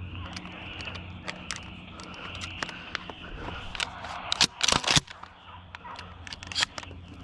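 Footsteps crunching through dry grass, with scattered clicks and rustles and a short burst of loud knocks and scrapes about four and a half seconds in, as of gear or the camera being handled.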